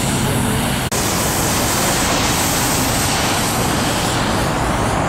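Steady, loud street traffic noise, an even rush of passing vehicles, with a momentary dropout about a second in.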